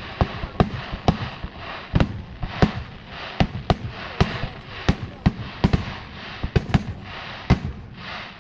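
Aerial fireworks bursting in quick succession, a sharp bang about twice a second, over a steady crackling hiss.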